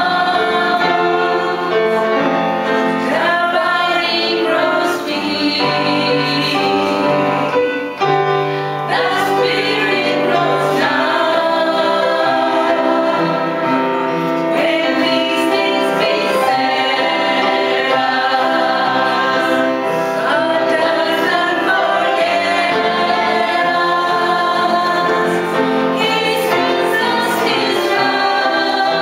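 Three women singing a gospel hymn together, with instrumental accompaniment, steadily and without a break.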